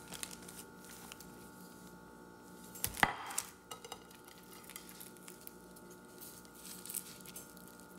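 Plate and food handling: one sharp knock about three seconds in, then faint small clicks and rustles as a quesadilla is picked up, over a faint steady hum.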